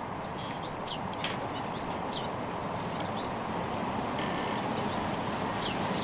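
Small aviary birds giving short high chirps, about one a second, each a quick slurred note that rises and falls, with a few briefer high notes between. A steady low rushing noise runs under them.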